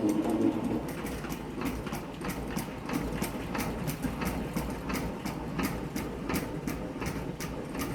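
Hand-cranked manual honey extractor spinning honey frames, its gearing clicking evenly about three times a second over a low rumble from the drum.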